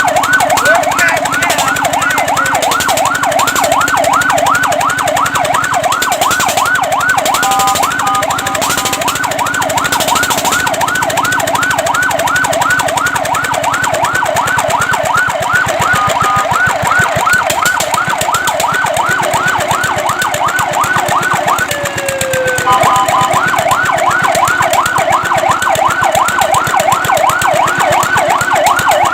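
Electronic fire truck siren in a fast yelp, sweeping up and down about three or four times a second. It briefly holds steady tones about eight seconds in. About two-thirds of the way through it drops in one falling glide, then picks the yelp straight back up.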